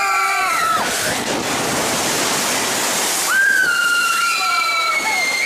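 Log flume riders screaming as the boat plunges, with rushing, spraying water. A held scream ends just under a second in, about two seconds of water rushing and spray follow, then a second long scream begins past the three-second mark and sinks slowly in pitch.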